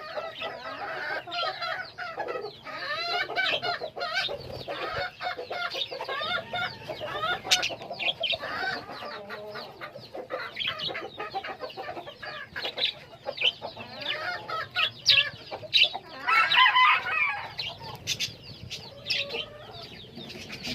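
Many birds calling over one another without a break: a dense chatter of overlapping wavering calls and short sharp notes, loudest about sixteen seconds in.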